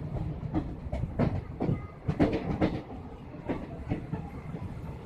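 Passenger train coaches running along the track: a steady low rumble with irregular sharp clacks of the wheels over the rail joints, heard from the open doorway of a coach.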